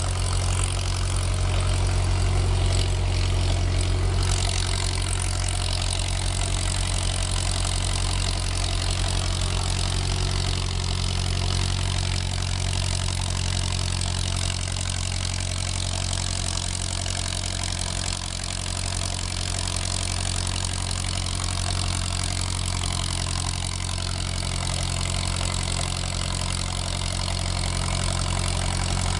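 Engine running steadily at a constant speed on 100% producer gas from a biomass gasifier, a low drone with a broad hiss over it.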